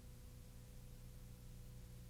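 Near silence: a faint steady low hum under tape hiss.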